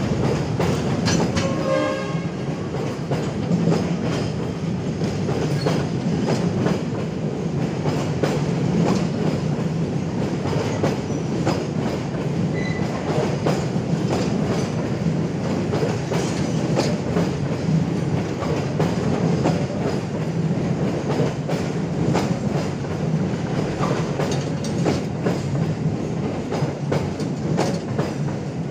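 Train of rail tank wagons rolling slowly past, their wheels clacking steadily over rail joints and points, with a brief pitched note about a second or two in.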